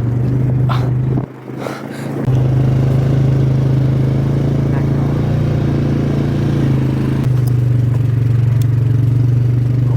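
Motor vehicle engine running steadily with a low hum. It dips away for about a second early on, then comes back, with a few light clicks and rattles near the start.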